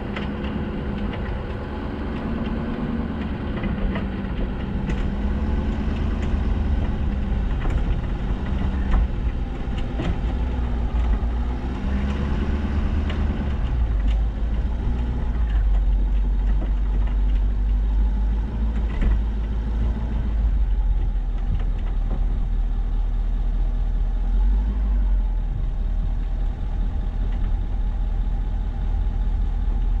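Plow truck's engine running as it drives along a snow-covered road, its pitch rising and falling, over a steady low rumble, with a few short knocks.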